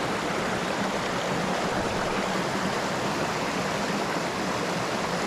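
A small rocky creek running steadily, water rushing over stones and little cascades.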